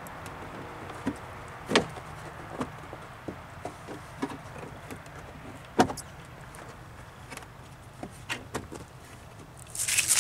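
Scattered clicks and knocks from hands working at a car's tail light assembly, with two sharper knocks about two and six seconds in. A burst of rustling comes near the end.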